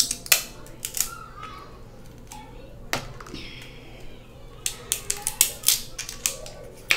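Kitchen scissors snipping through the hard shell of a snow crab leg: sharp cracking snips. There are a few near the start, one about three seconds in, and a quick run of them between about four and a half and six seconds.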